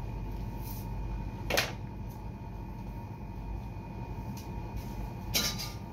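Steady low room hum, broken by one sharp knock about a second and a half in and a short rattle near the end.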